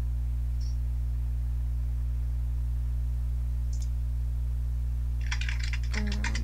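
Steady low electrical hum on the microphone, with a quick flurry of computer keyboard clicks near the end.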